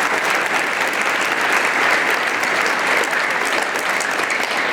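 A large audience clapping, a dense and even applause with no let-up.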